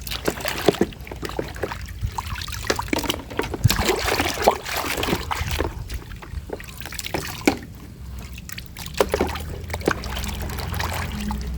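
Water splashing and trickling as a muddy plastic toy gun is washed by hand, with scattered light knocks and clicks.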